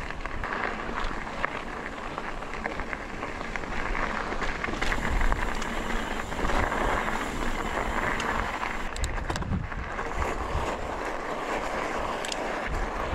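Mountain bike rolling over a rocky dirt trail: tyres crunching on gravel and the bike rattling, with occasional sharp clicks, under steady wind noise on the camera microphone.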